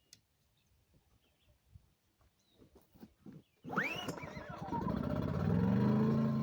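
Small clicks and handling sounds, then about four seconds in the gas engine of a Predator 2000 inverter generator starts suddenly, its pitch sweeping up and back down as it catches and revs, and settles into steady running.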